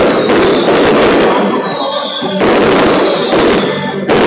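Fireworks display going off in rapid volleys of sharp bangs and crackles, three dense clusters one after another, with a faint falling whistle in the gaps between them.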